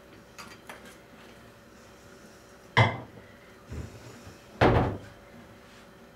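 Kitchen cupboard and household knocks: a few light clicks, then a sharp knock about three seconds in, a duller thud, and a second loud thud a couple of seconds after the first, as things are put away in a cupboard.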